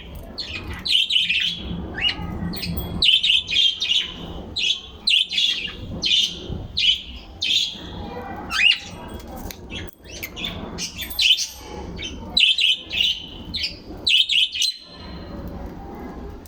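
Birds chirping: many short, high chirps in quick succession, one after another, over a low background rumble.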